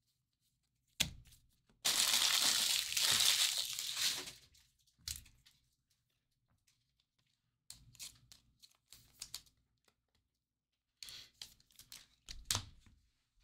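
A foil trading-card pack wrapper being torn open, a loud crinkling tear of about two seconds, followed by lighter crinkles and rustling and a few sharp clicks, one loud click near the end.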